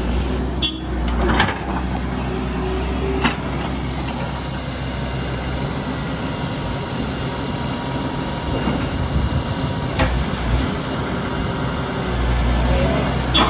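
An engine running steadily, with a few short knocks: one near the start, one a few seconds in and one about ten seconds in.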